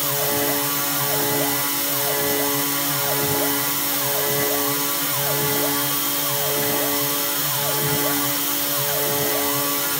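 DIY CNC router spindle running steadily as a 4 mm two-flute end mill cuts a hole in 6082-T6 aluminium plate, over a steady high hiss. The axis motors whine and glide up and down in pitch about once a second as the cutter circles the hole.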